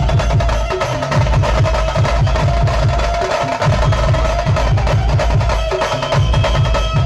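A banjo party band plays a fast, loud drum beat under a steady melody line from the Indian banjo.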